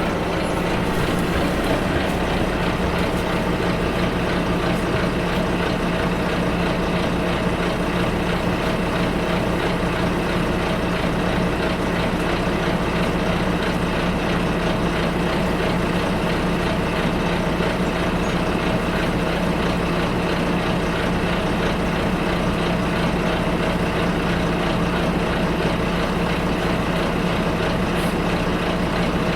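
Double-decker bus engine idling, heard from inside the bus: a steady low diesel drone with a constant hum and cabin rattle, unchanging throughout.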